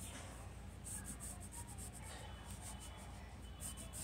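Pencil scratching on paper as a drawing is sketched, in quick clusters of strokes about a second in and again near the end, over a steady low background hum.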